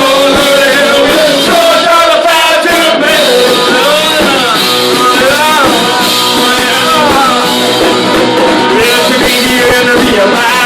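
Loud punk rock music with a singing voice, running steadily.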